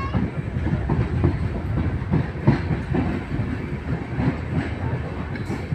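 Mysore Express passenger coach rolling along the track, heard from on board: a steady low rumble with irregular clicks as the wheels pass over rail joints.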